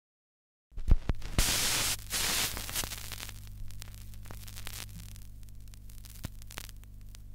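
Steady electrical mains hum with static hiss and scattered clicks and crackles, starting after a moment of silence; a loud burst of hiss comes about a second and a half in, then the noise slowly fades.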